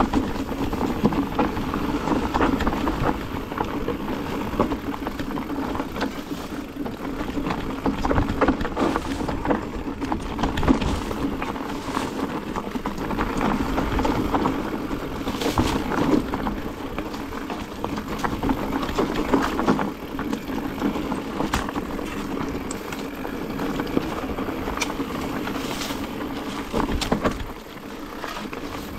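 Mountain bike riding fast down a rough dirt singletrack: a steady rush of tyres on dirt and leaves, with frequent clicks and knocks as the bike rattles over bumps.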